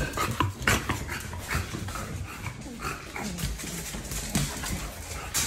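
American bully puppies whimpering and panting as they move about, with many short clicks and knocks.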